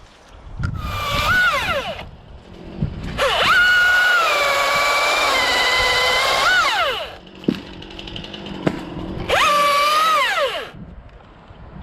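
Two-stroke chainsaw revved three times: a short burst, then a long run of about four seconds whose pitch sags in the middle and rises again before release, then another short burst. A couple of sharp knocks fall between the second and third runs.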